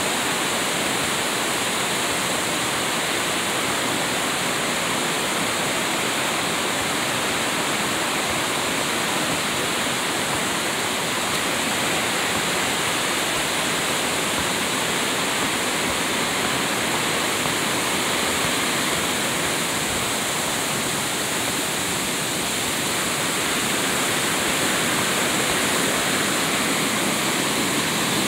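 Mountain stream rushing and splashing over rocks in a steady, full rush of water, growing a little louder near the end.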